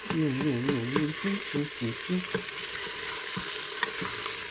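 Ground beef sizzling as it browns in an electric pressure cooker's inner pot, stirred and scraped with a plastic spoon, with a few light clicks of the spoon against the pot. A wavering pitched sound rises and falls over the first second or so, then breaks into short notes.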